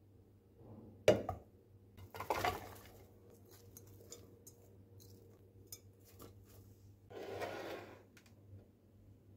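Kitchenware handling: a sharp knock about a second in as a pot is set down, then apple slices clattering as they are tipped from a glass bowl into the pot, with light clinks between. Near the end comes a softer scraping rustle.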